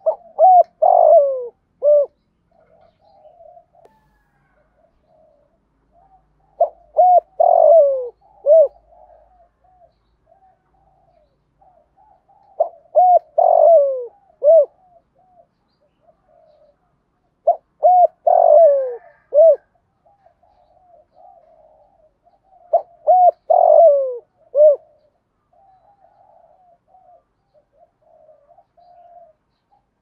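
Spotted dove cooing, giving its phrase of three or four loud notes five times, roughly every five to six seconds, with fainter soft warbling between phrases.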